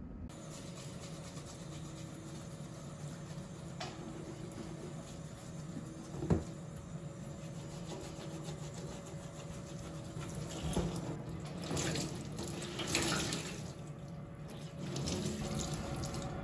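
Kitchen tap running into a stainless steel sink while a fabric dish-drying mat is scrubbed with a small brush under the stream. There is a single sharp knock about six seconds in, and the splashing and scrubbing grow louder in the last few seconds.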